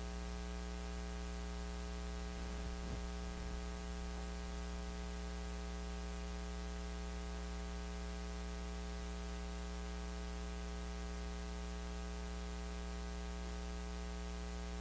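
Steady electrical mains hum with a buzzy stack of overtones over a constant hiss. A faint brief rustle comes a few seconds in.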